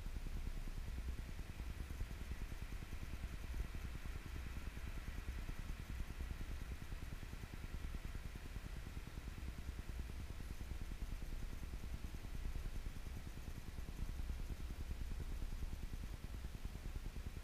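Steady low rumble with a faint even hiss above it: background room or equipment hum, with no distinct event.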